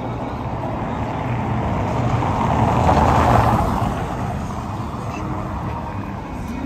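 A car passing on a wet cobblestone street. Its tyre and engine noise swells to a peak about three seconds in, then fades.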